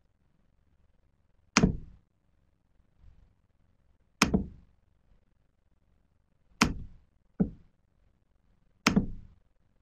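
Sharp knocks, five of them at uneven intervals of roughly one to two and a half seconds, two close together near the end, each dying away quickly.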